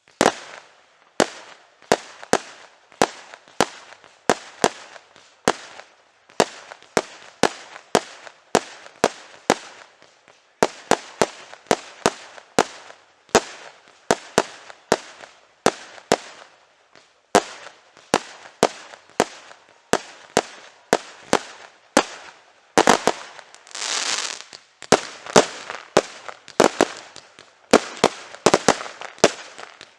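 Fireworks going off in quick succession: a sharp bang at the start, then a steady run of bangs about one or two a second, each trailing off briefly. A few seconds of hissing rise and fade about three quarters of the way through.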